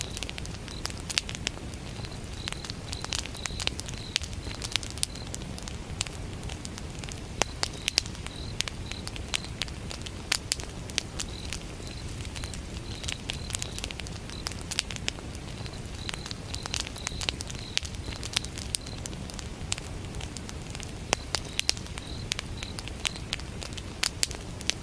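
Wood campfire burning with frequent sharp crackles and pops over a low steady rumble, while crickets chirp in repeated pulses.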